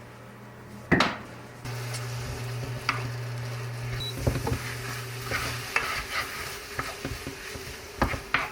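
Food sizzling in a frying pan as it is stirred, with a knock about a second in and several clacks of a utensil against the pan. A steady low hum runs underneath and stops partway through.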